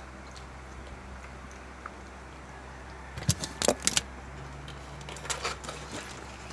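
Eating sounds: chopsticks and a thin clear plastic takeaway tray clicking and crinkling as a bite of fried tofu is taken, a cluster of sharp clicks about three seconds in and a few fainter ones a couple of seconds later, over a low steady hum.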